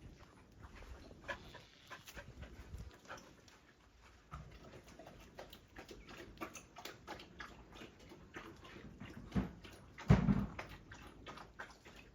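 Dogs moving about at close range: scattered light clicks and scuffles, with a louder thump and a brief low sound about ten seconds in.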